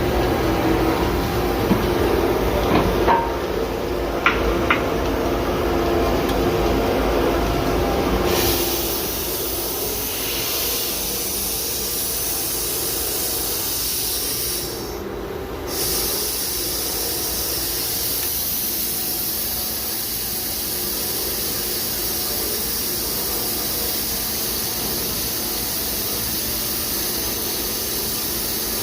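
Daito DNF-1050 CNC beam drill line running: a steady machine hum with a few sharp clicks at first. About eight seconds in it changes to a steady high hiss, which cuts out briefly about halfway through and then carries on.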